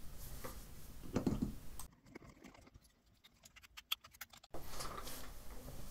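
Small hand screwdriver driving an M3x8 screw to lock the two pieces of a mount together: faint handling knocks, then about two seconds in a run of quick, light clicks as the screw is turned.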